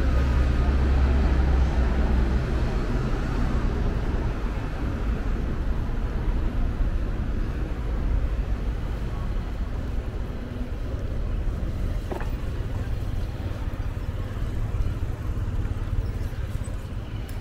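Night street ambience with a low vehicle-traffic rumble, loudest in the first few seconds and then easing off. A single short click about twelve seconds in.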